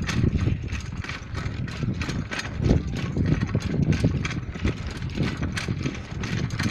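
Bicycle rattling and jolting at speed over a rough road, a rapid irregular clatter of knocks, with wind rumbling on the phone's microphone.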